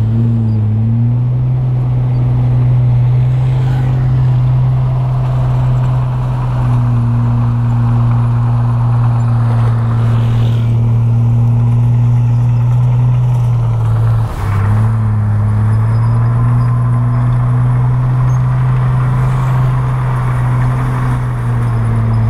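A heavy dump truck's diesel engine running at a steady speed, a loud low hum that dips and breaks off briefly about two-thirds of the way through, then picks up again.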